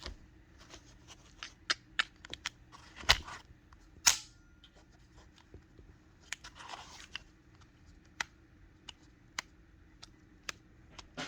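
Scattered sharp clicks and a few louder snaps, about 3 and 4 seconds in, of a cast epoxy resin cylinder being handled and fitted into an HDR .50 revolver-style launcher. A brief rustle comes near 7 seconds.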